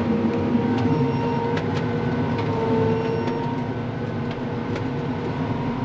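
Crop sprayer running steadily while spraying in the field, its pump on. A constant machine drone with a few held tones and some faint ticks.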